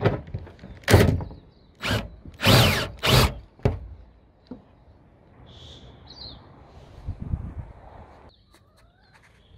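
Hand pop-rivet gun fastening corrugated iron roofing: about six sharp metallic snaps and clunks in the first four seconds as rivets are pulled, the roof iron ringing after some of them. A bird chirps briefly about six seconds in.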